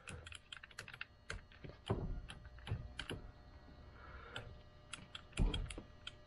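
Rapid, irregular plastic clicks of a car power seat switch being pressed and toggled over and over while testing whether it works after cleaning, with a couple of brief low thumps, one about two seconds in and one near the end.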